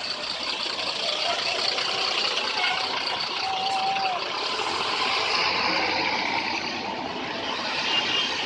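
Roadside traffic noise from a heavy vehicle's engine and tyres, steady and slightly louder through the middle, with faint voices.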